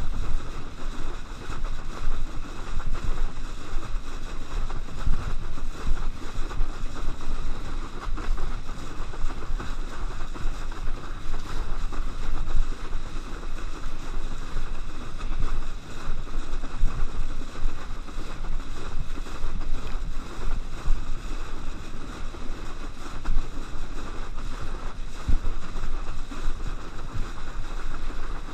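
Wind buffeting the microphone and water rushing under a kneeboard towed through a boat's wake. It is a continuous churning rush with a strong low rumble, swelling and dropping in loudness.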